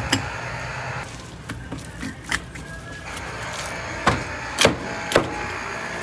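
A series of about six sharp, short knocks at uneven spacing, three of them coming about half a second apart near the end, over a steady low background hum.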